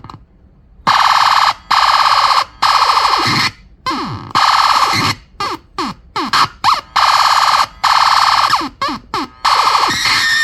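Homemade optical-theremin sound-effect box built on an old toy sound chip, making harsh, buzzy electronic noise. The noise cuts in and out abruptly in bursts lasting from a fraction of a second to about a second, with quick falling sweeps in between. Near the end it turns into a steadier tone with high held pitches.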